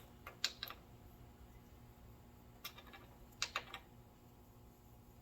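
Faint, sparse clicks and taps of small metal steering-gear-box parts being handled and fitted, in a few short clusters.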